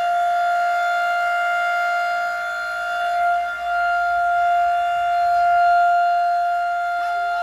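A 1920s Federal Electric Type B electromechanical siren sounding a steady, held tone at full pitch, with no rise or fall.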